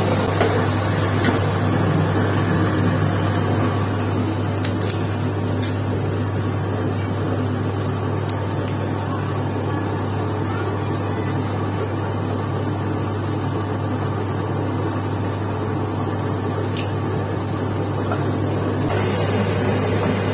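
Metal lathe running steadily, its electric motor giving a low hum, with a few light metallic clicks as parts are handled.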